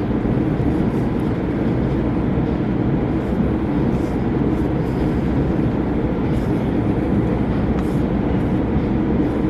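Steady mechanical rumble of a tunnel car wash's conveyor and running equipment, heard from inside a car sitting in neutral on the conveyor, with a few faint clicks.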